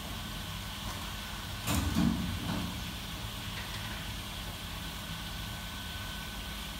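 Steady low machinery hum in a kitchen, with a brief knock about two seconds in.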